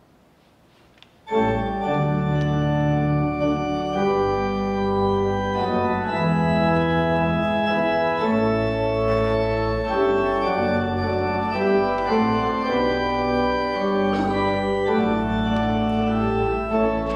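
Organ music starting about a second in after a brief quiet moment: held chords moving from one to the next.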